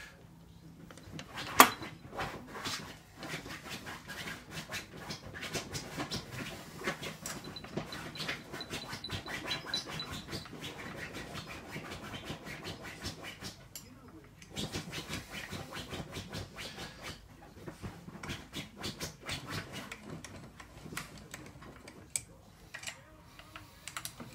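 A pet scratching and pawing at its bedding in uneven runs of rapid scratchy strokes, with a brief lull about halfway. A single sharp knock sounds about a second and a half in.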